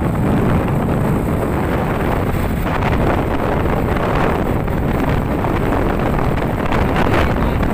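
Wind buffeting the microphone over the steady rumble of a moving truck, heard from its open cargo bed.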